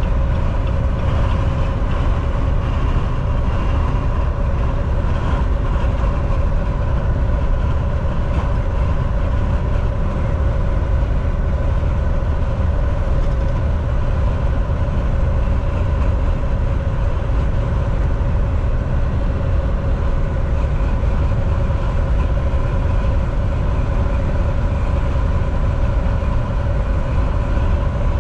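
Semi truck driving at a steady speed: a continuous low engine and road drone with a faint steady hum on top, unchanging throughout.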